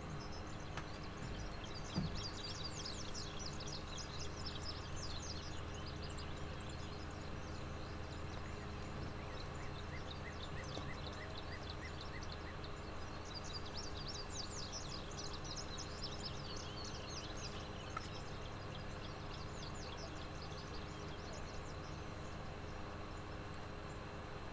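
Birds singing in two bursts of rapid high trills, with a short run of even chirps between them, over a faint steady low hum; a single knock about two seconds in.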